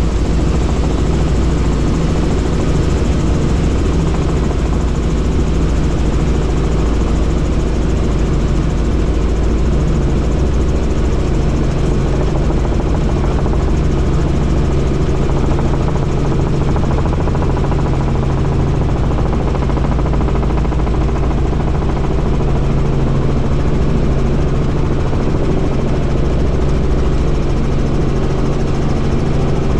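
Helicopter in flight: a loud, steady drone of rotor and engine that holds unchanged throughout.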